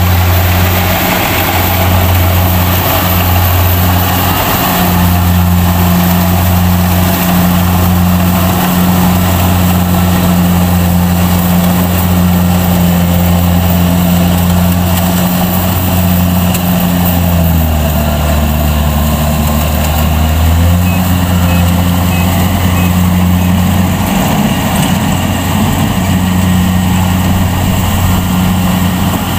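Kubota DC-70 combine harvester's diesel engine and threshing machinery running steadily at a constant hum. About two-thirds of the way through, the engine speed sags for a few seconds and then picks back up.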